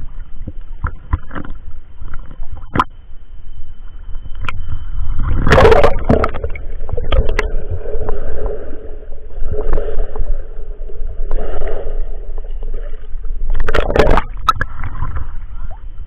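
Water sloshing and splashing around a handheld action camera in a river, with a loud splash about a third of the way in as the camera goes under and another near the end as it comes back up; between them the sound is muffled, heard from underwater.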